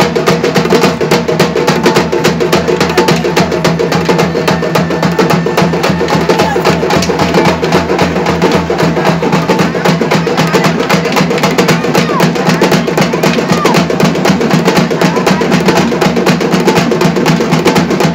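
Fast, unbroken drumming with dense clacking strokes, many to the second, loud and even.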